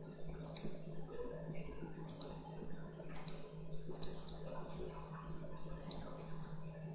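Computer mouse clicking a handful of times, single clicks and a couple of quick double-clicks, over a steady low electrical hum.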